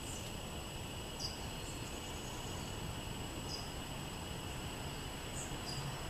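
Insects trilling steadily on several high pitches, with a handful of short, high bird chirps scattered through, over a low background rumble.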